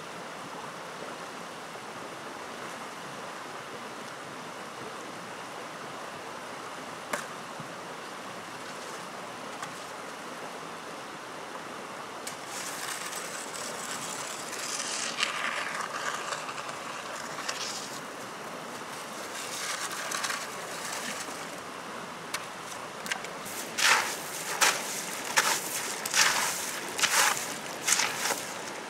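Shallow river flowing steadily over stones. Partway through come irregular scraping sounds, then near the end a hoe chops repeatedly into wet riverbank gravel, about eight sharp strikes in quick succession.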